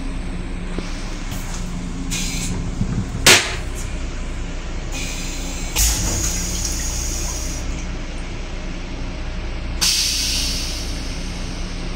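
Stainless steel railcar toilet flushing: a sharp click about three seconds in, then bursts of hissing water spray in the bowl. Under it is the steady hum of the moving train.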